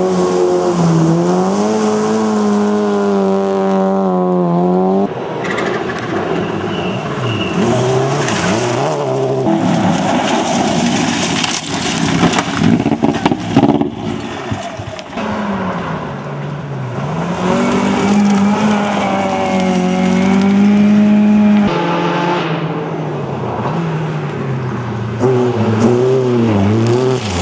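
Rally cars at full throttle on a gravel stage, several passes cut together. The engines rev up and drop back repeatedly through gear changes, over the scrabble of tyres and spraying gravel. Around the middle there is a rough, spiky burst as a car passes close.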